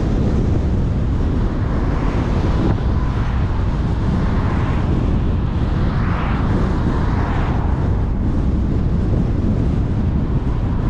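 Steady wind rumble on a car-mounted microphone mixed with the car's road and tyre noise while driving, with a brief swell of higher noise about halfway through.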